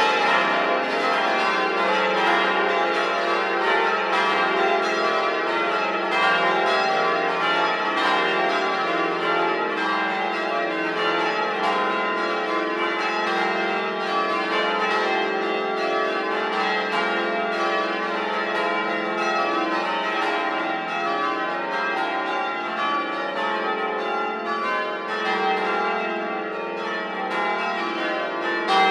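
Church bells of a 1954 Gillett & Johnston ring of eight, rung full circle in change ringing, struck in a steady unbroken sequence.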